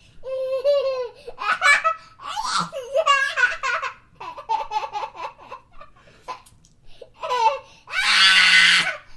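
A baby laughing in a string of short, pitched fits of giggles with brief pauses between them. Near the end comes the loudest part, a breathy squeal of laughter.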